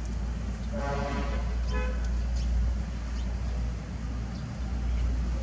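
Steady low rumble, with two short pitched toots: one about a second in and a shorter one just before two seconds.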